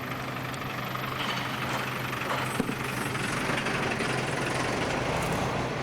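Steady mechanical running hum with a haze of noise that grows slightly louder, and one sharp knock about two and a half seconds in.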